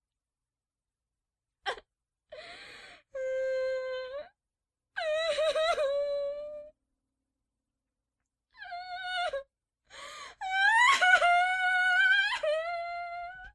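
A person crying hard: high-pitched wails broken by sharp gasping in-breaths and pauses, the last wail longer and louder than the rest.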